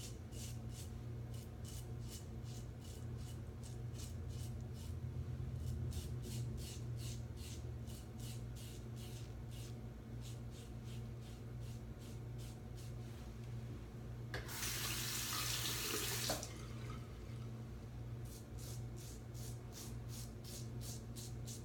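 RazoRock SLOC-head double-edge safety razor scraping through stubble in short, quick strokes, about three to four a second, on a pass against the grain. About fourteen seconds in, a tap runs for about two seconds, then the scraping strokes resume. A steady low hum runs underneath.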